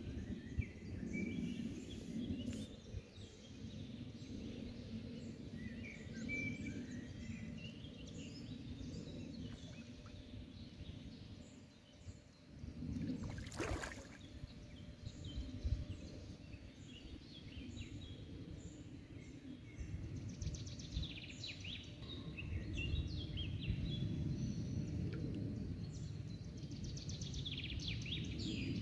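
Scattered bird song and chirps over a low steady rumble. About halfway through comes a single sharp splash as spawning common bream thrash at the surface by the bank. The chirping grows busier near the end.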